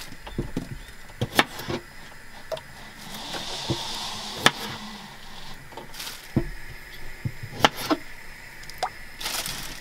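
Knife halving baby potatoes on a chopping board: irregular sharp knocks as the blade goes through and strikes the board.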